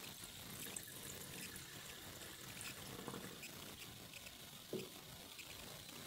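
Faint trickle of methanol running from a glass tube into a glass flask onto boric acid crystals, thinning to drips, with one brief louder sound about three-quarters of the way through.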